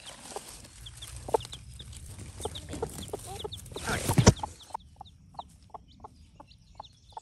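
A mother hen clucking softly to her chick, a regular run of short clucks about two or three a second from around five seconds in, with the chick's high peeps scattered throughout. Before that, peony leaves rustle as they are pushed aside, with a knock a little after four seconds.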